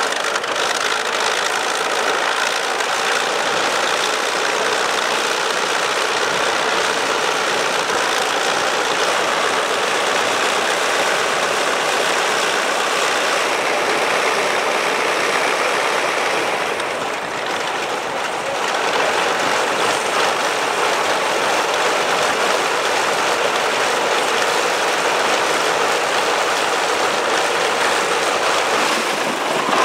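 Engine of a B.E.2 biplane, a World War I-era aircraft, running steadily on the ground with its propeller turning. The level dips briefly about two-thirds of the way through.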